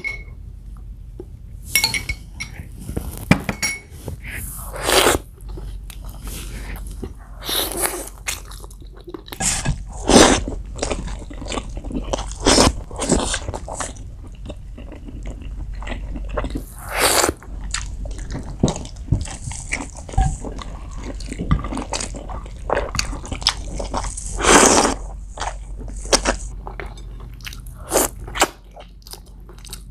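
Close-miked eating sounds of a person biting and chewing spicy pork curry: irregular wet chews and smacks, with a louder bite every few seconds.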